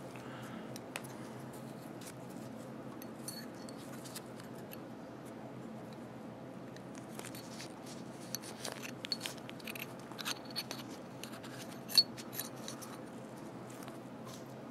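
Light metallic clicks and scrapes of AR-15-style bolt carrier parts being handled as the firing pin is fitted, scattered and busier in the second half, with one sharper click near the end, over a faint steady hum.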